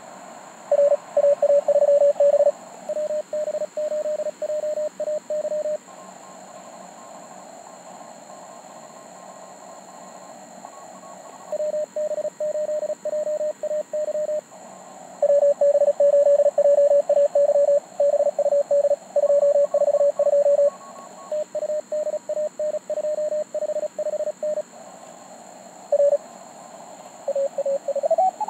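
Morse code (CW) tones from a Mountain Topper MTR4B QRP transceiver: two stations' keyed dots and dashes at slightly different pitches, one clearly louder, trading a contest exchange of calls and serial numbers. Under them is steady receiver hiss with fainter Morse signals higher in pitch, and a gap of hiss alone about six seconds in.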